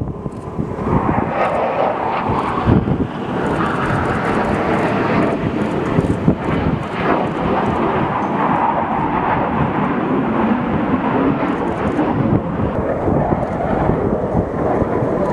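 Jet noise from a Blue Angels F/A-18 Super Hornet, its two F414 turbofans, as it flies past low. The sound is a steady, dense rush with no clear rise or fall.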